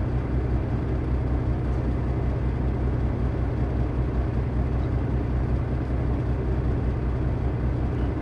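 Diesel engine idling with a steady low rumble.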